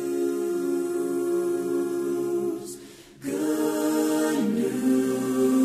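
A cappella choir singing a long held chord, breaking off briefly about three seconds in and coming back with another held chord.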